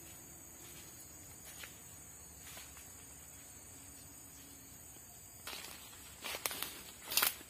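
Footsteps crunching through dry leaf litter on the forest floor, starting about five and a half seconds in and irregular, the loudest step near the end. Under them runs a steady high insect drone.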